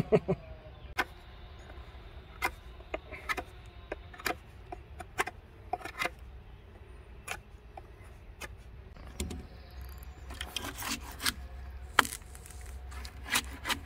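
Knife whittling a green branch into a flat bark-peeling spud: irregular short scraping clicks of the blade shaving the wood, coming faster near the end.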